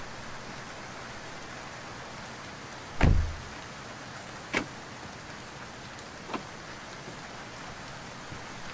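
A car door slamming shut with one heavy thud about three seconds in, over a steady hiss; two lighter clicks follow later.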